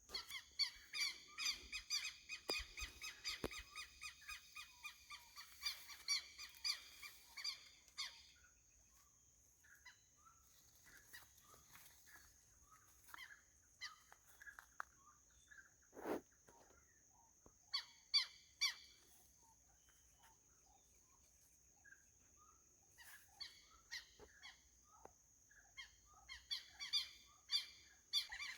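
Wild birds calling in quick runs of repeated notes, faint. There is a long run in the first eight seconds, a short burst a little past halfway, and another run near the end, over a steady high-pitched hum.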